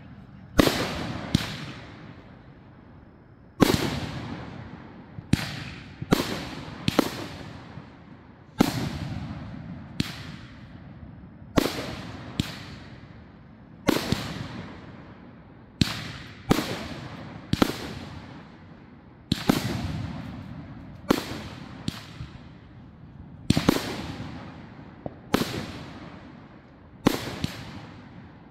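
A 25-shot 'Toys' firework cake firing repeatedly: a sharp bang every second or so, sometimes two close together, each trailing off over about a second.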